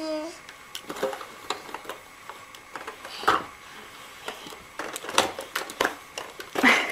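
Irregular clicks and knocks of a plastic baby activity toy being handled, with a brief pitched sound at the very start and a louder knock near the end.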